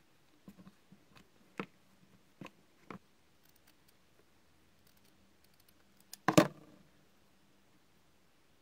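Small scissors snipping paper, with light clicks and rustles of the paper and a clear plastic mould being handled, and one short, much louder clatter about six seconds in.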